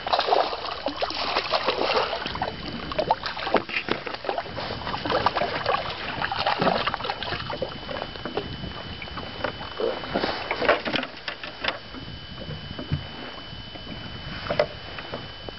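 Small waves lapping and slapping irregularly against the side of a small fishing boat, with wind, over a faint steady high tone.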